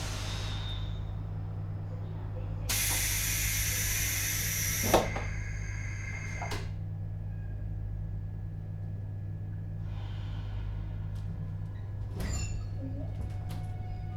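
Inside a JR Hokkaido 721-series electric train car standing at a platform: a steady low hum from the onboard equipment, then a burst of compressed-air hiss lasting about two seconds that ends in a sharp thump, followed by a few light clicks.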